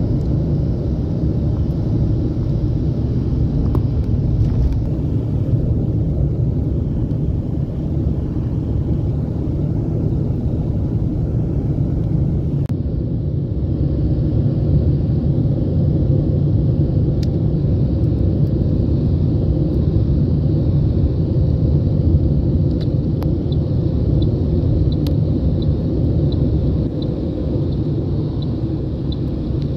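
Steady low road and engine rumble inside a moving car's cabin. In the last few seconds a light, regular ticking comes in, about twice a second.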